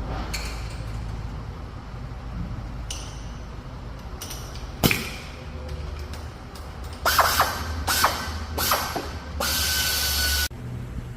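Tool work: a few sharp clicks and one loud knock, then four short bursts of a hissing whine, the last lasting about a second.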